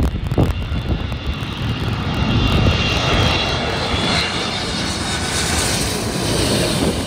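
Boeing 777 twin-jet passing low overhead on final approach to land. The jet engine noise builds over the first few seconds, with a high fan whine through the middle.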